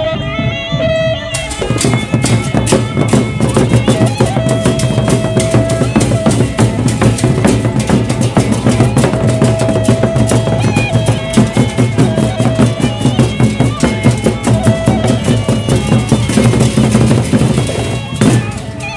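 Gendang beleq ensemble playing: big drums beaten in a fast, dense rhythm with clashing cymbals and a recurring held high note over them. It cuts in about a second in and breaks off abruptly near the end, where thinner-sounding music takes over.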